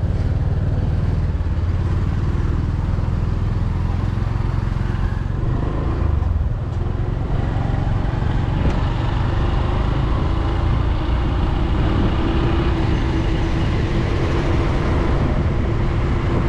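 Riding on the back of a motorcycle taxi: the bike's engine running under a continuous heavy rumble of road and wind noise, with other traffic around. A steady engine hum stands out more clearly from about two-thirds of the way through.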